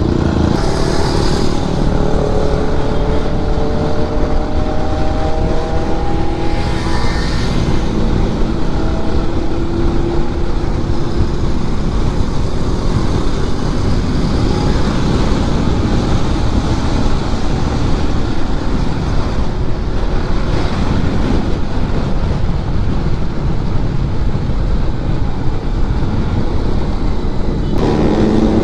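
Kawasaki Z900's inline-four engine pulling under way: its note climbs through the revs in the first several seconds and starts climbing again near the end, under a constant heavy rush of riding wind on the microphone.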